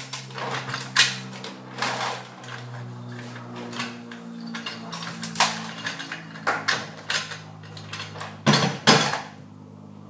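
Irregular metallic clanks and knocks of a lever hoist being stripped by hand: its steel body, load chain and handle bumped and set down on a steel workbench, the loudest two hits close together near the end. A steady low hum runs underneath.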